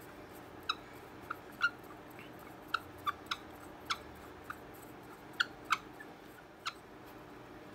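Short, high squeaks, about a dozen at irregular intervals, as the stand's threaded post is twisted into the base of a Blue Snowball iCE microphone.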